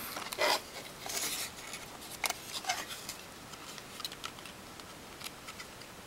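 Clear plastic clamshell packaging of a CPU being pried open by hand: snaps, clicks and crinkles of thin plastic. They are busiest in the first second and a half, then thin to a few scattered clicks.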